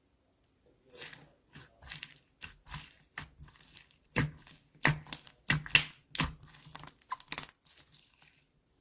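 Slime being worked by hand: after about a second of silence, an irregular run of short, sharp pops and snaps, loudest in the middle.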